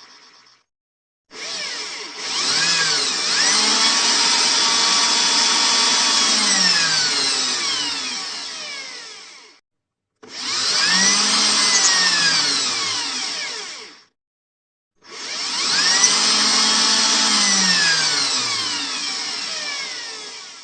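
Electric drill run three times in separate bursts, each one rising in speed, holding, then winding down, with short silences between.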